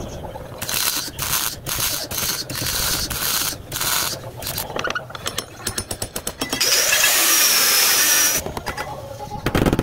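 Dent-puller stud welder (spotter) worked on a sheet-steel car body panel: a rapid run of short, sharp zaps and clicks. About two-thirds in, an angle grinder runs steadily against the panel for a couple of seconds, then cuts in and out.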